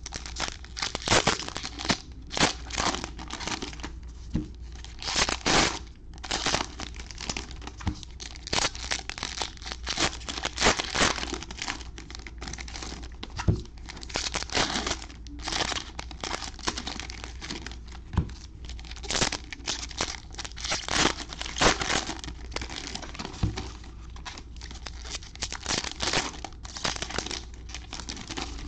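Foil wrappers of Diamond Kings baseball card packs being torn open and crinkled by gloved hands, the cards slid out of each pack; irregular crackling bursts follow one another throughout.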